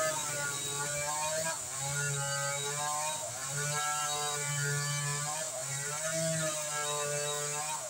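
Two-stroke NW258 chainsaw running, its engine pitch dipping and rising again and again as the chain takes load and frees up in the cut.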